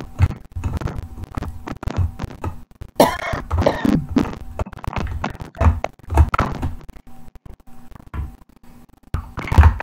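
A woman coughing and sneezing in a string of short fits, the loudest about three seconds in and again near the end.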